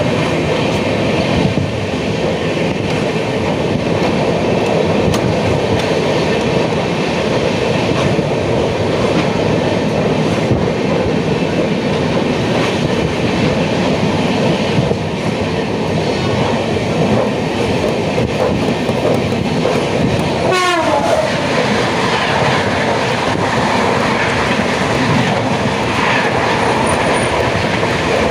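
Passenger train running at speed, heard on board: a steady, loud rumble of wheels on the track. A brief falling tone comes about two-thirds of the way through.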